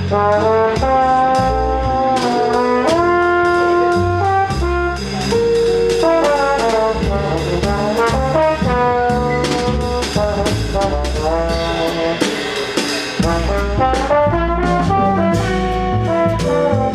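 Jazz quintet playing Brazilian jazz: horns carry the melody in close harmony over bass and drums, with steady cymbal strokes.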